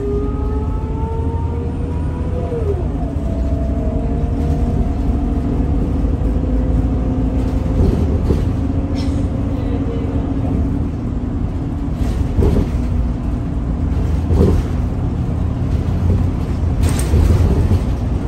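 Scania L94UB city bus heard from inside the cabin, under way: a steady engine rumble with a drivetrain whine that rises in pitch, drops sharply about two and a half seconds in as the gearbox changes up, then holds steady. A few short knocks and rattles from the body come later, the sharpest near the end.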